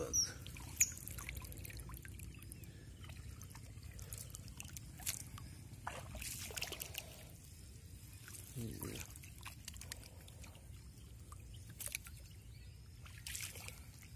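Water trickling and dripping off a monofilament gill net as it is lifted out of a flooded rice paddy, with small splashes now and then.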